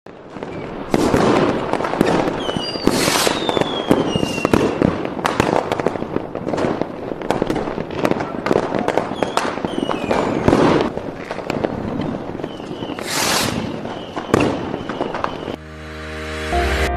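Fireworks going off: a rapid, irregular run of cracks and bangs with a few falling whistles among them. Music fades in near the end.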